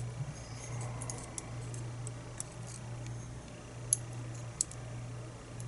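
Scattered light metallic clicks and ticks as small lock parts, pins and springs from a disassembled lock cylinder, are handled with tools, over a steady low hum.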